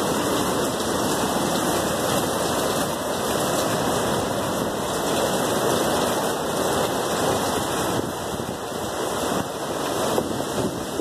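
Hurricane-force wind and driving rain: a loud, steady rushing noise that eases slightly about eight seconds in.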